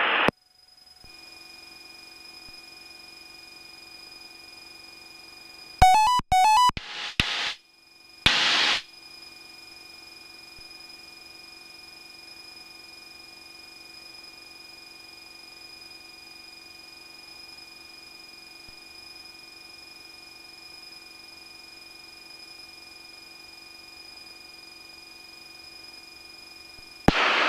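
Steady faint electronic tones in the aircraft's headset intercom audio, with a quick run of electronic beeps about six seconds in and a short burst of noise a couple of seconds later.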